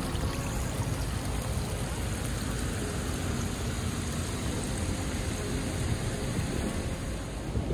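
Steady rushing of storm water: rain runoff streaming down a muddy gully, with rain falling.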